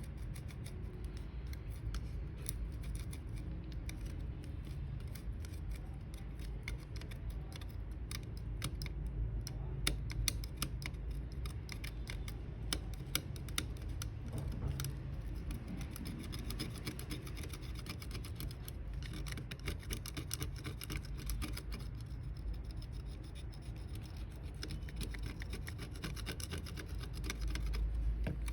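Light, rapid clicking and scraping of small parts being handled and worked on, over a steady low hum.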